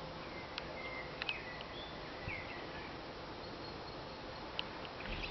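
Small birds calling faintly: scattered short chirps and a few brief whistled notes.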